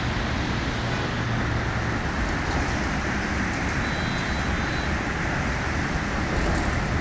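Steady outdoor urban background noise: an even rumble and hiss like distant street traffic, unchanging throughout.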